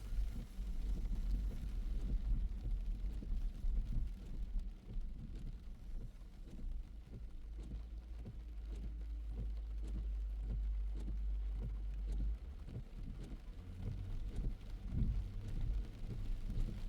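Low rumble of a car driving in the rain, with road noise. The deep drone drops away about twelve seconds in.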